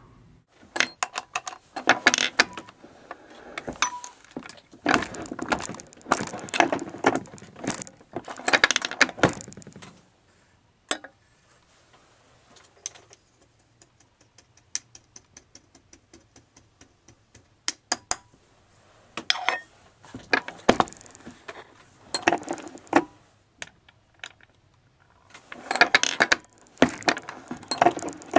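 Brass pistol cases clinking and a turret reloading press clicking and clattering as it is worked by hand. The sound comes in short bursts, with a run of light, even ticks in the middle.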